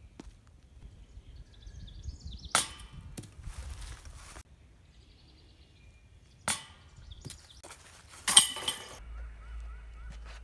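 Disc golf discs striking: a sharp knock followed by a second or so of rustling, another sharp knock a few seconds later, then a louder half-second clatter.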